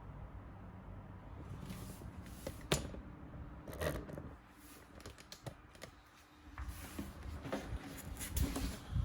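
Packaging being handled by hand: a run of sharp clicks and taps with short bursts of rustling, the sharpest click about three seconds in.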